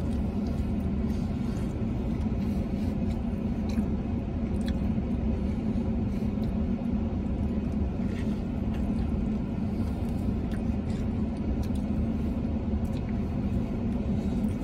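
Steady low hum of a vehicle running while parked, heard inside the cabin, with faint wet clicks and smacks of someone biting and chewing a burrito.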